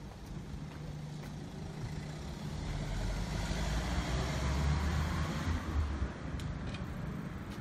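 Street traffic: a motor vehicle driving past, its engine rumble and tyre hiss swelling to a peak about four to five seconds in and then fading.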